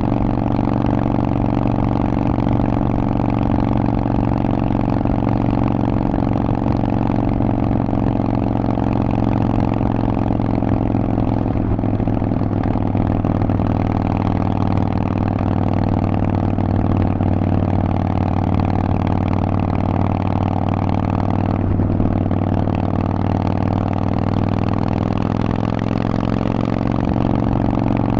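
Harley-Davidson Forty-Eight's air-cooled 1200 cc V-twin running through a Vance & Hines aftermarket exhaust at a steady pace on the road. The engine note dips briefly and picks back up twice.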